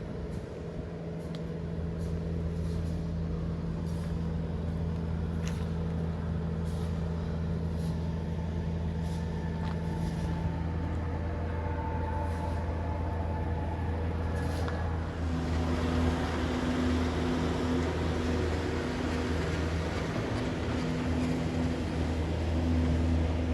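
Heavy construction machinery engines running steadily with a low hum, growing louder and noisier about two-thirds of the way through.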